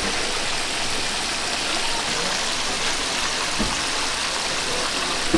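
Steady sizzle of food deep-frying in hot oil.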